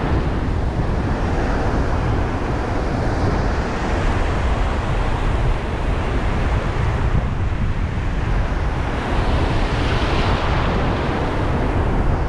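Ocean surf breaking and washing in shallow water, with wind rumbling on the microphone. A wave washes in louder about nine seconds in.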